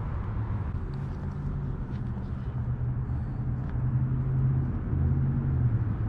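Low, steady hum of road traffic, with a vehicle engine's drone growing louder in the second half.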